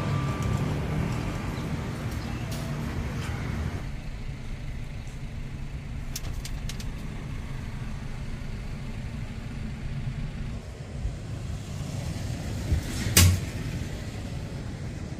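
Steady low road and engine rumble heard inside a moving car's cabin. A single sharp clack stands out near the end.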